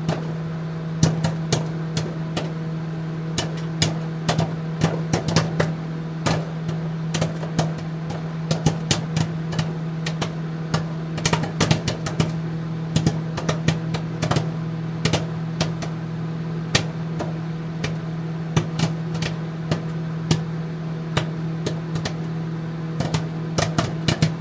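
Popcorn kernels popping inside a running microwave oven: many irregular sharp pops over the oven's steady hum.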